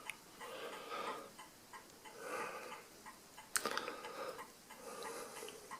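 Small metal clicks and ticks from the stiff, gummed-up detent levers of an Addo Multo Model 3 mechanical calculator being twisted back and forth on their shaft, with one sharper click a little past halfway.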